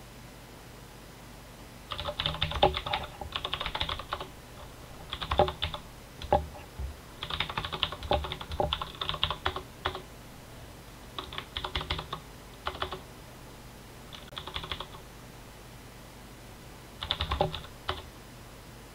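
Computer keyboard being typed on in several short bursts of rapid key clicks with pauses between: shell commands being entered at a terminal.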